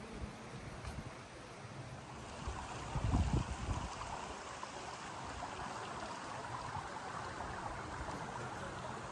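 Steady rush of running water from a stream, with a brief low rumble of wind on the microphone about three seconds in.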